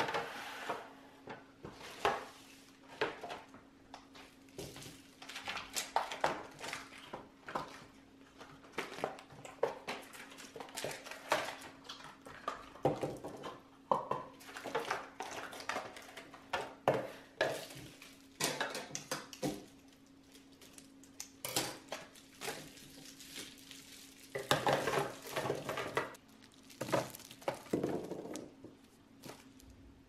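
Clear plastic storage bins clattering and knocking on a countertop as they are handled and set down, with small wrapped cheeses dropped into them: irregular clicks and knocks throughout, over a faint low steady hum.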